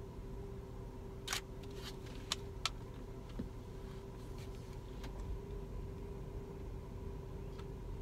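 Nikon D7200 DSLR shutter firing four times in quick succession about a second in, with a couple of fainter clicks later, over a steady low vehicle engine hum.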